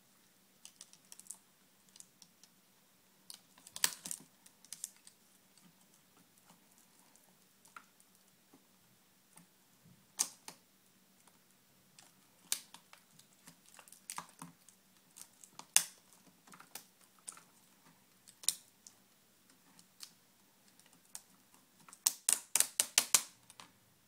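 Scattered light plastic clicks and taps as a laptop's LCD panel is handled and lifted out of its screen frame, with a quick run of about eight clicks near the end.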